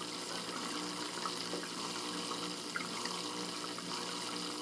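Fish tank water trickling steadily, with a faint low hum that comes and goes.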